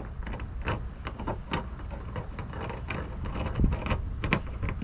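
Hand screwdriver driving a screw that fastens a metal rudder gudgeon to a plastic kayak hull: a run of small irregular clicks and scrapes as the screw is turned in.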